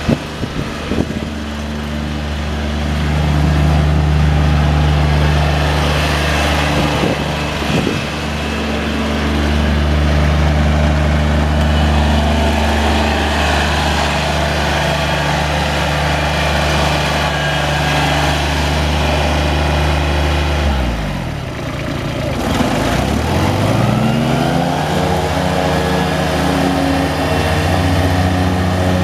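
Kubota D1305 1.3 L three-cylinder diesel engine of a Kubota ZD331 zero-turn mower running steadily. About 21 seconds in, its speed drops sharply and then climbs back up over a couple of seconds.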